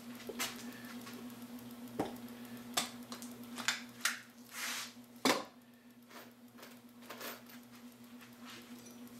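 A caulking gun being squeezed to lay glue on a spruce frame: a string of short clicks and knocks with a brief squishing hiss near the middle and a louder knock about five seconds in, over a steady low hum.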